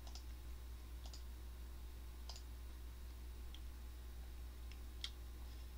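Five faint, sparse clicks spread over a few seconds, over a steady low hum.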